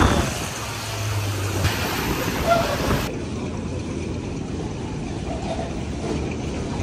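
Steady airport background noise, a hum and hiss with faint distant voices; the background changes abruptly about three seconds in.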